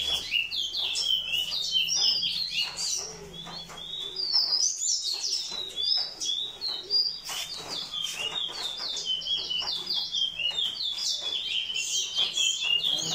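Caged songbirds singing a fast, continuous run of short high chirps and trills, with a short lull about four to five seconds in.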